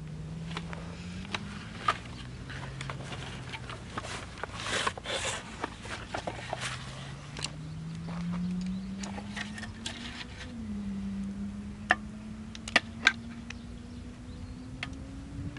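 Rustling of a fabric stuff sack and the clicks and rattles of a folding aluminium roll-table frame being pulled out and unfolded, with a few sharp clicks about twelve to thirteen seconds in as the leg joints are worked. A low drone slowly rises in pitch underneath.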